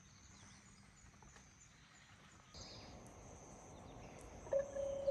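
Birds chirp faintly over quiet rural station ambience. About four and a half seconds in, the platform's train approach indicator starts a steady electronic tone, warning that a train is approaching.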